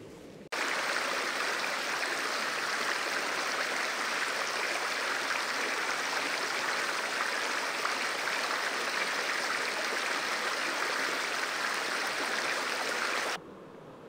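Steady rush of a fast-flowing stream, starting abruptly about half a second in and stopping abruptly shortly before the end.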